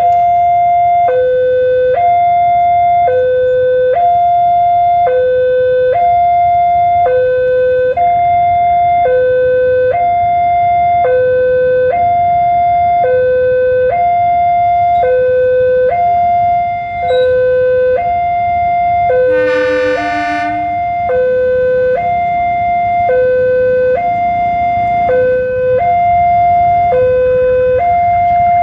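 Electronic railway level-crossing warning alarm sounding steadily, alternating between a lower and a higher tone, each held about a second. About 20 seconds in, a diesel locomotive's horn gives one blast of just over a second.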